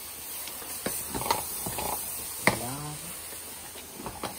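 Water from a garden hose spraying over a horse, with scattered clicks and knocks, the sharpest about two and a half seconds in, followed by a short low vocal sound that falls in pitch.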